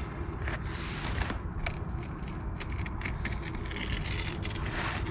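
Knife cutting and scraping through a sheepshead as it is filleted: a run of short, scratchy crackles and scrapes over a low, steady rumble.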